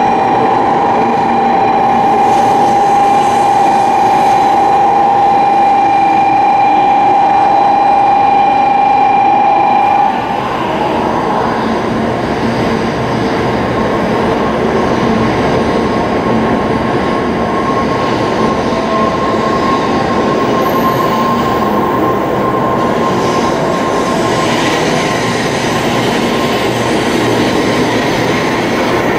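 N700-series Shinkansen train rolling slowly along the platform as it comes in to stop, a steady rumble of wheels and running gear. A steady high tone sounds over it and cuts off suddenly about ten seconds in.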